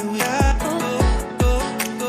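Background pop music: a steady beat of deep bass-drum hits, about two a second, under a held melodic line.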